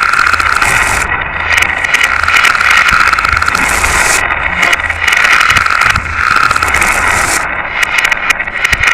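Glass marbles rolling and clattering along a plastic marble-run track: a dense, continuous rattle of small clicks over a steady rolling hum.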